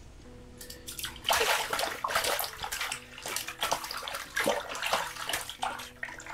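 Water splashing and sloshing in an ice-fishing hole as a thrashing cutthroat trout is hauled up out of it by hand, in irregular splashes starting about a second in.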